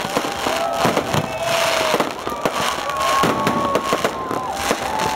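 Fireworks display: a dense run of bangs and crackling bursts throughout, with held whistling or voice-like tones over them.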